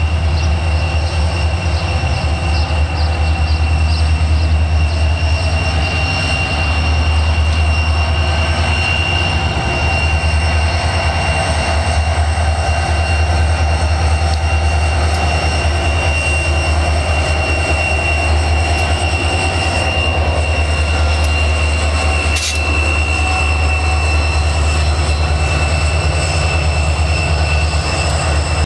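Diesel-electric locomotives running light past at close range: a loud, steady low engine rumble with a thin high whine held over it throughout. The sound cuts off suddenly at the end.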